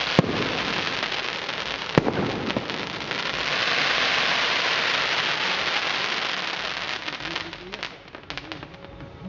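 Fireworks finale: a dense, continuous crackle of many small bursts, with two sharp bangs in the first two seconds. It swells around the middle, then thins to scattered pops and dies away near the end.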